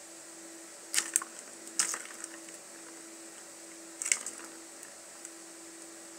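Plastic ball knocked and rolling inside a plastic circular track cat toy as a cat bats it: sharp clatters about a second in, again near two seconds, and once more about four seconds in, with a short rattle after the later ones.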